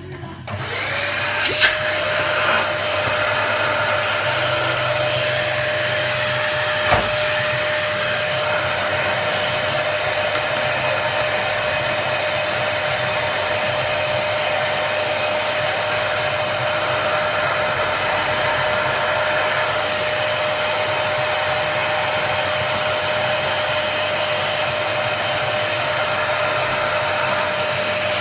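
An electric vacuum-type motor spins up about half a second in, then runs steadily with a high whine over rushing air. There is a sharp click about a second and a half in and a knock at about seven seconds.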